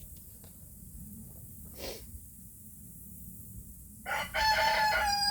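A rooster crowing once near the end, a loud call held on one pitch. A brief puff of breathy noise comes about two seconds in.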